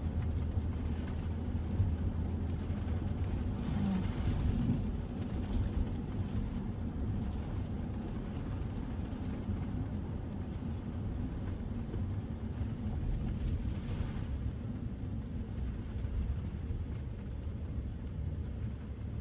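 Steady low rumble of road and engine noise from a 2021 Ford F-150 pickup driving.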